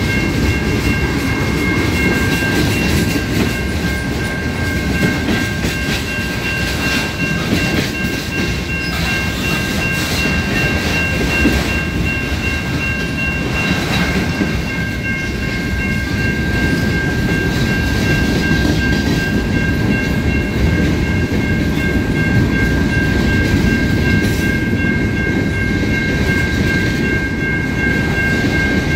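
A train rolling past at a level crossing: a steady rumble with wheels clattering over the rail joints. Steady high ringing tones from the crossing's warning bell run alongside.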